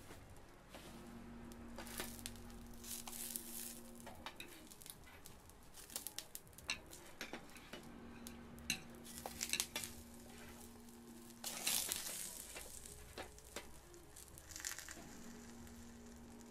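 Hotteok (Korean sweet pancakes) frying in oil on a metal griddle: sizzling that swells up a few times, with quick clicks and knocks of metal utensils against the pan.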